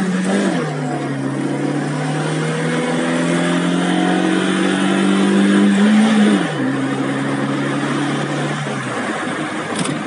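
Tofaş Doğan SLX's four-cylinder petrol engine heard from inside the cabin, pulling under acceleration. Its pitch climbs steadily and drops with an upshift about half a second in and again after about six and a half seconds, and the engine tone fades near the end.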